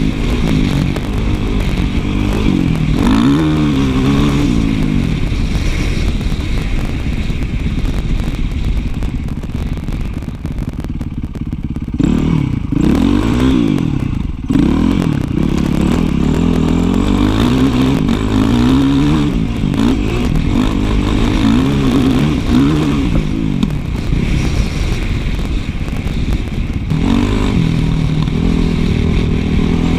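Dirt bike engine revving up and down over and over as the rider works the throttle and gears. It goes briefly quieter when the throttle is rolled off about eleven seconds in, then revs hard again.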